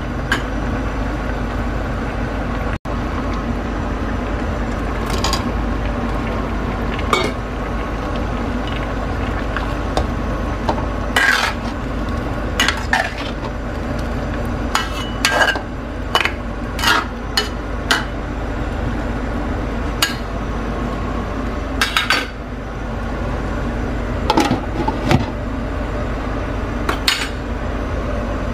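A metal ladle clinking and scraping against a stainless steel pan while stirring a chicken stew with potatoes and carrots: about twenty scattered sharp clinks over a steady background hum.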